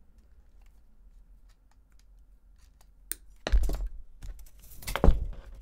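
Armature wire being handled and cut at a worktable: a few faint clicks, then a sharp snip of wire cutters about three seconds in, followed by two louder rustling, scraping handling sounds.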